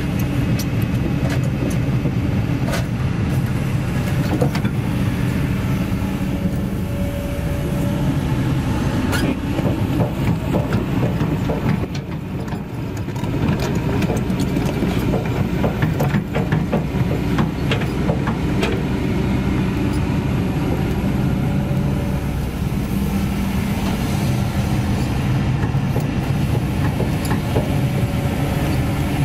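Kobelco SK200 crawler excavator's diesel engine running steadily under load, with frequent metallic clanks and squeaks from its steel tracks and working gear as the machine moves. The sound is briefly quieter about twelve seconds in.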